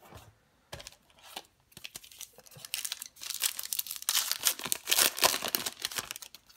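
A trading card pack's wrapper being torn open and crinkled by hand: a few scattered rustles and clicks at first, then dense crackling crinkling for the last three and a half seconds or so.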